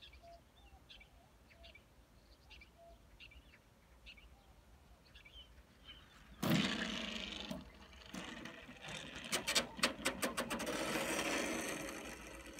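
Model plane's landing gear hitting asphalt with a sudden thump about six seconds in, then the small wheels rattling and scraping over the rough road surface as it rolls out, with a quick run of clicks and knocks partway through. Faint bird chirps before the touchdown.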